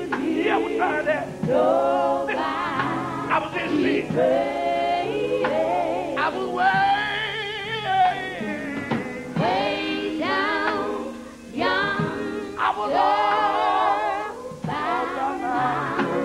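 Live gospel singing by a vocal group with a male lead and women singers: long sung phrases with wavering vibrato and sliding runs, broken by short pauses between phrases.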